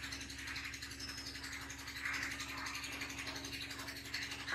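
Marker pen writing on a whiteboard: faint scratching strokes, a little stronger about two seconds in and near the end, over a steady low hum.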